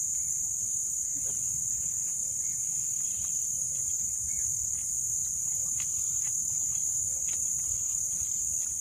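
Crickets calling steadily at night: a continuous high-pitched trill, with a few faint clicks over it.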